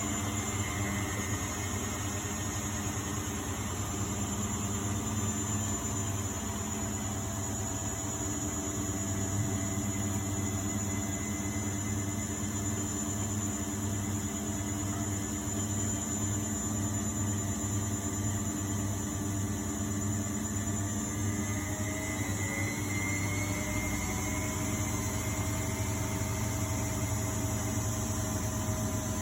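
1999 Miele Novotronic W828 front-loading washing machine running steadily: its drum motor gives a continuous hum with several steady whining tones that shift a little in pitch about three-quarters of the way through.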